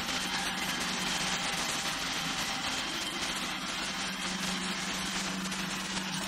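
Robot vacuum cleaner running steadily: a constant motor hum over an even hiss.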